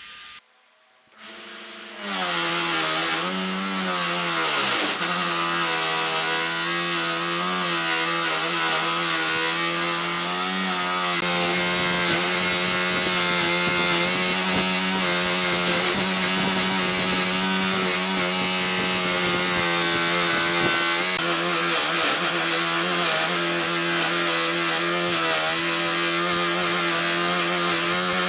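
Chainsaw cutting into wood. It comes in about two seconds in, its pitch sinks as it bites into the cut, then it runs steadily under load.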